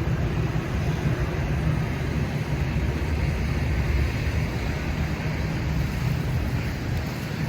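Steady low rumble of wind buffeting the microphone in a snowstorm.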